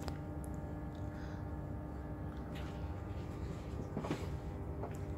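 Steady low hum inside an LNER InterCity 225 passenger coach, with several steady tones and a low rumble, and a few faint clicks near the start and about four seconds in.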